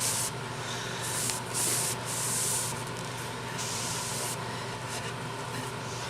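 Hissing rubbing on a wooden rolling pin, coming in several bursts over a steady low machine hum.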